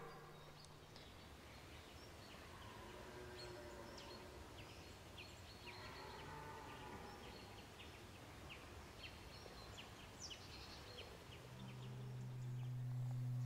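Distant red deer stags bellowing faintly during the rut, two drawn-out calls in the first half, over scattered small bird chirps. Near the end a steady low hum comes in and grows louder.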